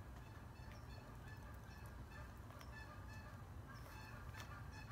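Geese honking faintly in the distance: many short calls overlapping and repeating throughout. A few sharp taps stand out, from the hen pecking at her feed dish.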